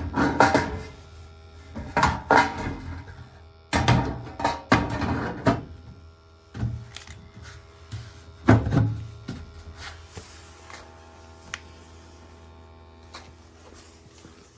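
Knocks and clatter of equipment being handled, then a steady low hum with several held tones that stops near the end.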